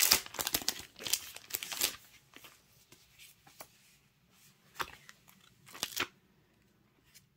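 Paper and packaging rustling and crinkling as sheets of craft paper and a sticky-note pad are handled, busy for about the first two seconds, then a few light crackles.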